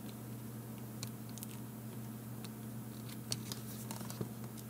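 Faint clicks, taps and scratches of fingers handling the plastic housing of a Garmin Nuvi GPS and working a small wire plug onto its circuit board, a few sharper ticks scattered through, over a steady low hum.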